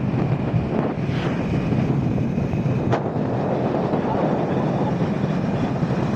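Steady wind rush on the microphone from riding a motorcycle, with the bike's running and road noise underneath. One short click about three seconds in.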